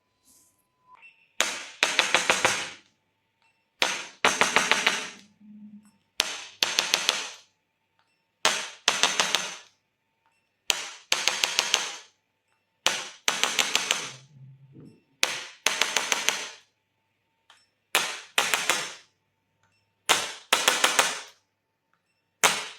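Sharp mechanical clicking in repeated groups, about ten of them roughly two seconds apart; each group is a single click followed by a quick run of clicks lasting about a second.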